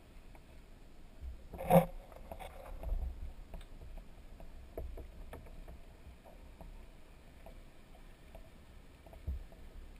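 Muffled low water rumble heard through an underwater camera housing, with scattered small clicks and one sharp knock about two seconds in, plus a couple of softer knocks later.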